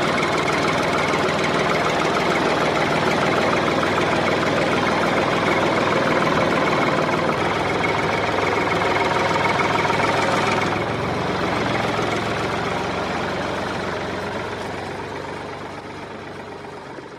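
Tractor engine sound running steadily with a knocking rattle, then fading gradually from about ten seconds in.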